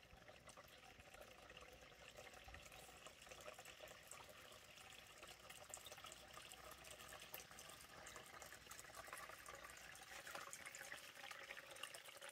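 Faint, steady trickle of a small stream of running water.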